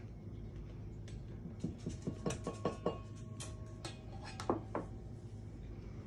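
Spatulas knocking and scraping against stainless steel mixing bowls and a plastic dish while butter is scraped in. It is a quick run of light clinks and knocks, some with a short metallic ring from the bowl.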